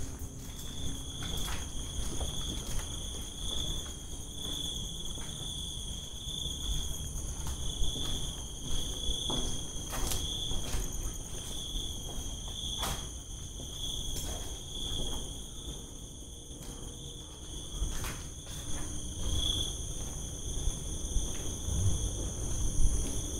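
Dense chorus of crickets and other insects, a steady high trill that pulses evenly. A few scattered sharp taps sound over it, the clearest about halfway through.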